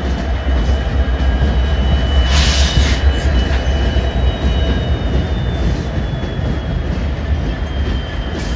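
Diesel locomotives and freight cars moving through a rail yard: a steady heavy low rumble, with thin high wheel-squeal tones, one drifting slowly downward in the second half. A brief hiss about two seconds in.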